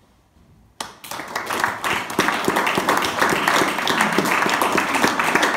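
Audience applause, breaking out suddenly after a brief hush about a second in and quickly building to steady clapping.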